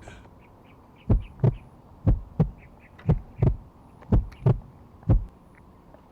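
Heartbeat sound effect: low double thumps, lub-dub, about once a second, four pairs followed by a single last thump.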